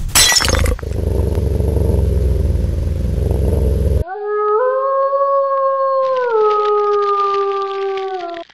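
A loud crash, then a low rumbling noise, then one long wolf howl that rises in steps, holds, and sinks partway through before cutting off near the end.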